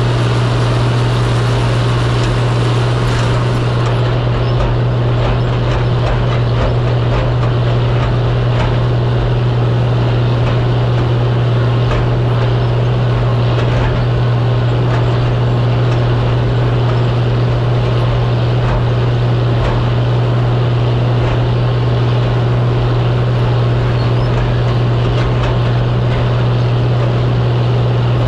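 Farm tractor's engine running steadily under way, a constant low hum with no change in speed.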